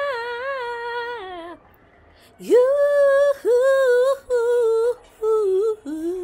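A woman singing unaccompanied with strong vibrato. A long held note slides down and stops about a second and a half in. After a short breath, a run of short held notes steps lower and lower.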